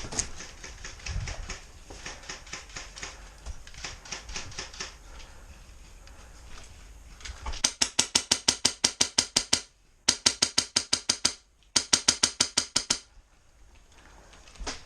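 Airsoft guns firing on full auto as a rapid clatter of shots, about ten a second. Fainter bursts come first, then three loud bursts close by about halfway through, each lasting one to two seconds.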